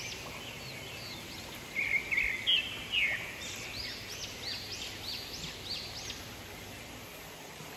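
Wild birds calling on a forested hillside: a quick series of short rising-and-falling chirps, with a few louder, sharper chirps about two to three seconds in, over a steady background hiss.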